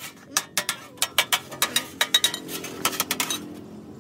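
Quick, irregular metallic taps with a light ring: a small metal tool striking a handmade sheet-metal tray resting on a wooden block, about three to four taps a second.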